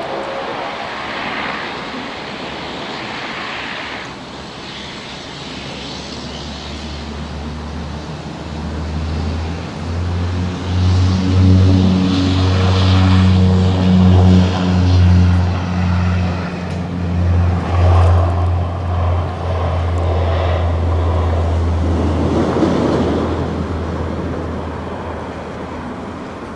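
Saab 340's twin General Electric CT7 turboprops running at low power as the aircraft lines up, then spooling up to takeoff power about nine seconds in. A low, pulsing propeller drone dominates the takeoff roll and eases somewhat near the end as the aircraft lifts off.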